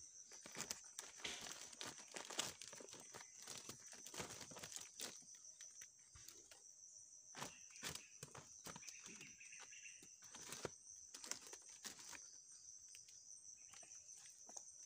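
Split firewood pieces knocking and clattering against each other as they are packed by hand into a woven plastic sack, with the sack crinkling; irregular light knocks, faint overall.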